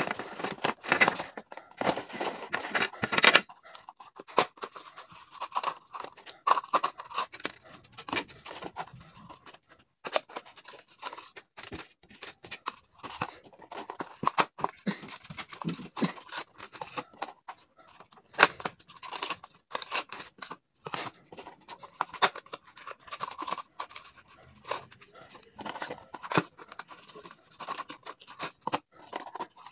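Cardboard medicine boxes being handled and blister packs of capsules slid out of them, with crinkling, scraping and many short plastic clicks as the blisters are dropped onto a glass table. The handling is busiest in the first few seconds.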